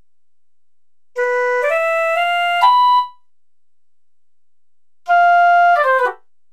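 Sampled piccolo from the SGM-V2.01 soundfont in FL Studio's Fruity Soundfont Player, auditioned as a short rising run of about six notes. After a pause, the flute patch holds one note, then runs quickly down.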